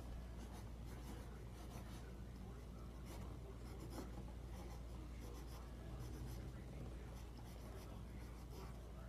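Pencil writing on a stack of paper, a faint scratching in short irregular strokes as letters are written, over a steady low hum.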